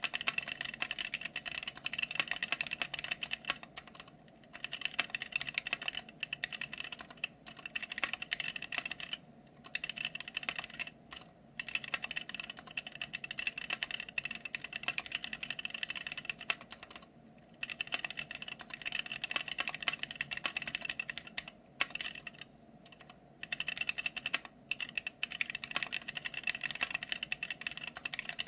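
Fast, continuous typing on a mechanical keyboard with Gateron Clear linear switches: a dense run of keystrokes broken by brief pauses every few seconds.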